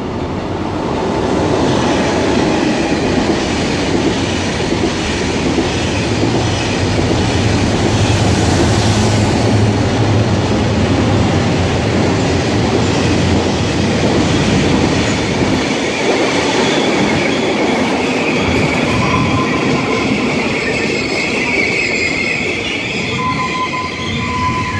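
Locomotive-hauled passenger train pulling into a station: the locomotive passes with a heavy low rumble, then the coaches roll by with wheel clatter, and high-pitched brake and wheel squeal builds in the second half as the train slows to stop.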